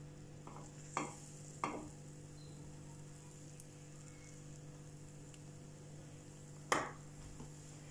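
Pancake batter frying quietly in a nonstick pan over low heat, over a steady low hum. A metal ladle clicks against the pan three times, the last and loudest near the end.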